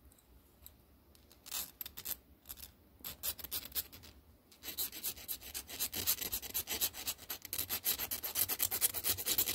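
Round file stroking over the end of a steel cotter pin, filing it thin and sharp: a few separate strokes at first, then from about halfway a fast, steady run of short file strokes.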